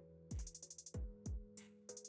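Background music with an electronic drum beat: repeated bass-drum kicks and hi-hats over held synth chords, with a quick hi-hat roll about half a second in.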